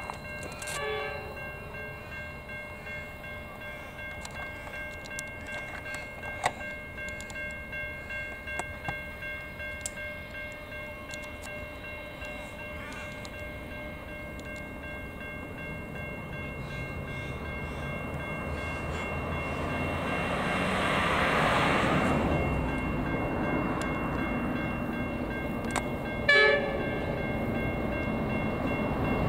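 Level crossing bells ringing steadily as a diesel locomotive approaches, its engine rumble growing louder from about halfway through. The locomotive gives one short horn blast near the end.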